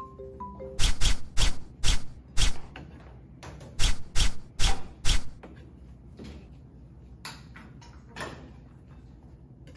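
Kitchen knife chopping on a cutting board: two runs of about five sharp strikes each, roughly two a second, then a few fainter cuts near the end.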